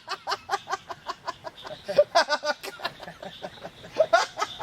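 A person laughing in quick, rhythmic pulses, in several bouts.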